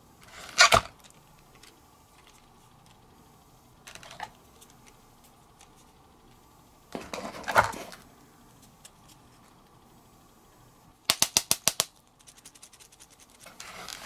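Plastic toy capsule eggs and their cardboard display box being handled: a few knocks and rustles, then a quick run of about eight sharp clicks in under a second, followed by lighter ticking and a last knock near the end.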